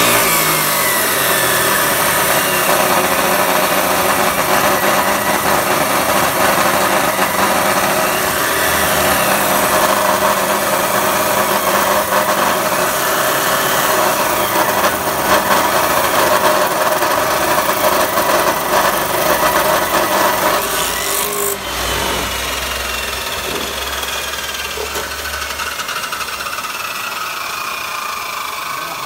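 Abrasive chop saw with a 14-inch red Saitej metal-cutting wheel grinding steadily through a solid round steel bar. About 21 seconds in the cut ends and the wheel spins down with a slowly falling whine.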